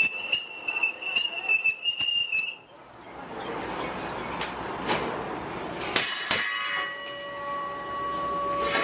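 Metalworking sounds. First a steady high-pitched whine with rapid metallic clinks, which stops about two and a half seconds in. Then a noisy rush with a few sharp metal strikes. Then a steady ringing hum from about six seconds in.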